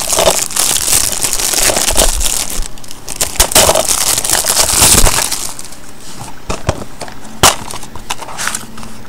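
Plastic shrink-wrap crinkling and crackling as it is torn and pulled off a DVD case, dense for about five seconds, then thinning out into a few sharp clicks, one loud one near the end.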